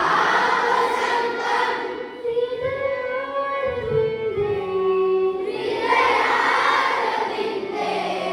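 A group of voices, most likely the assembled students, singing a song together in unison, with long held notes that swell twice.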